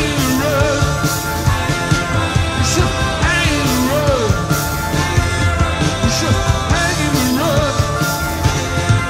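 Live rock band playing an instrumental break: a driving bass and drum pulse under a lead line that bends and glides in pitch, the same phrase coming round about every three and a half seconds.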